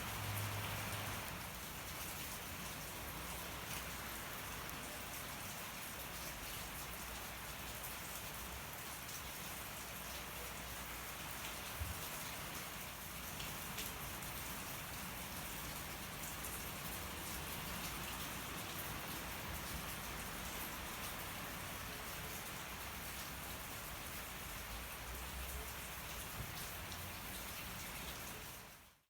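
Steady rain falling, with a few sharp pops from a wood fire burning. The sound fades out near the end.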